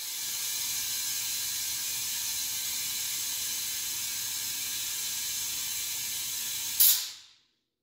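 Compressed air hissing steadily through a digital tire inflator clipped onto a tire valve, with its trigger held. Near the end comes a short, louder burst of air, and then it stops abruptly.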